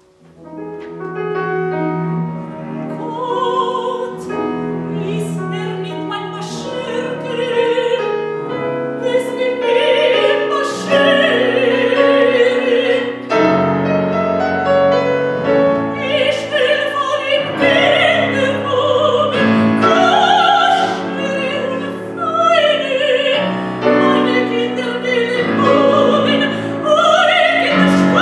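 Operatic soprano singing with wide vibrato over grand piano accompaniment. The piano starts alone out of a brief hush, and the voice comes in a few seconds later.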